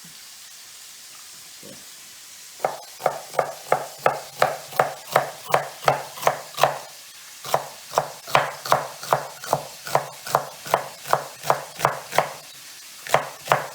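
Kitchen knife chopping fennel finely on a cutting board: quick, even chops about three a second, starting a couple of seconds in, pausing briefly twice and resuming. A frying pan sizzles steadily underneath.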